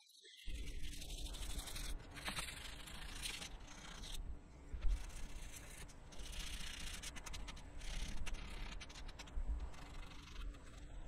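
Sandpaper rubbed by hand over the painted metal pedestal base of a barber's chair, scuff-sanding the old paint as prep for spraying. It makes a scratchy rasp that swells and fades with the strokes, starting about half a second in.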